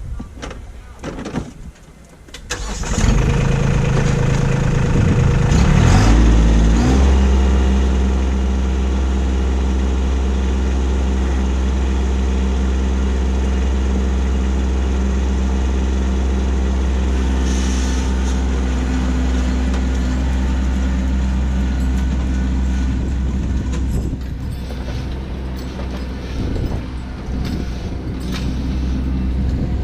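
Kubota B2601 compact tractor's three-cylinder diesel engine starting about three seconds in. It revs up over the next few seconds, then settles into a steady run.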